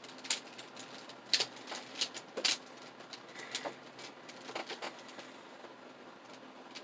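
Plastic puzzle cube being turned by hand: irregular clicks and clacks of its layers snapping round, several in quick succession and then a sparser run of taps.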